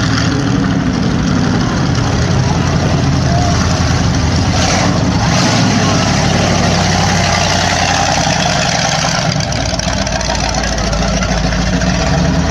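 Monster truck engine running loud and steady near idle, a deep continuous engine note.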